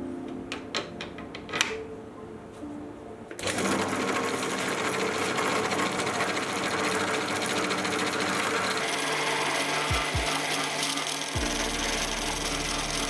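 A few clicks and knocks of metal being handled, then a small workshop machine tool starts abruptly about three seconds in and runs steadily, loud and dense, as it cuts metal; a low hum joins near the end.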